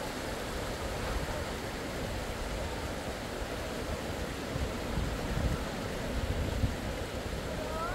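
Steady rushing storm wind, with gusts buffeting the microphone in low rumbles about five seconds in.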